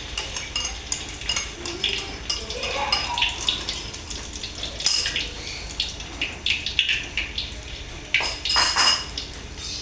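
Metal utensils clinking and scraping against a pan and dishes during cooking, in irregular knocks and clatters, loudest in a cluster near the end.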